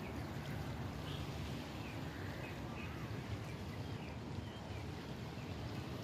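Wind buffeting the microphone as a low, uneven rumble over steady outdoor background noise, with a few faint high chirps in the first half.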